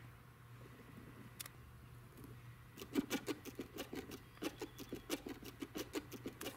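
A rabbit digging in loose potting soil, its forepaws scratching at the dirt. The scratching starts about three seconds in as a quick run of dry scrapes, about five a second.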